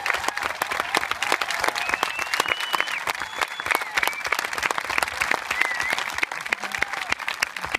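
Outdoor crowd applauding: many hands clapping together in a dense, steady patter.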